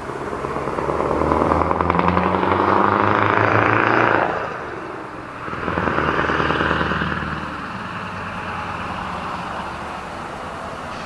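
Scania R620's V8 diesel with open exhaust pipes, loud as the truck drives past. It swells from about a second in, dips briefly around the middle and comes back, then settles to a lower, steady engine sound.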